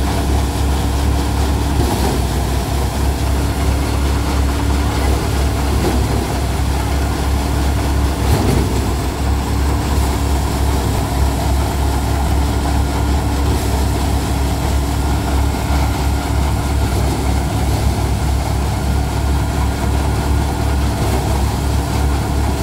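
Tractor engine running steadily under load, driving a five-fan paddy thresher, with a constant low rumble and a steady hum.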